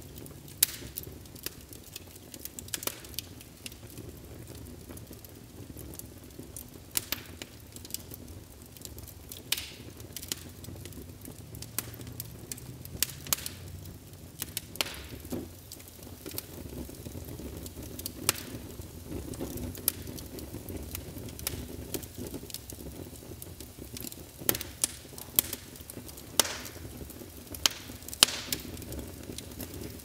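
Log fire crackling: irregular sharp pops and snaps over a low, steady rumble of flames.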